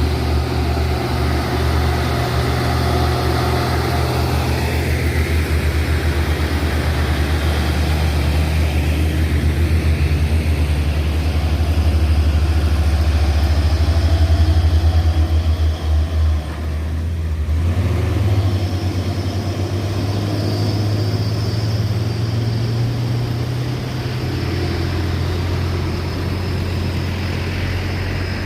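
Heavy sugarcane trucks with trailers passing, their diesel engines running with a deep, steady rumble. About two-thirds of the way through, the engine note briefly drops out, then carries on at a slightly higher pitch.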